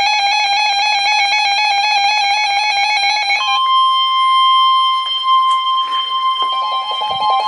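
A rapidly warbling electronic alarm beep. About three and a half seconds in it gives way to the steady 1050 Hz NOAA Weather Radio warning alarm tone, which marks an incoming warning. The warbling alarm starts again over the steady tone near the end.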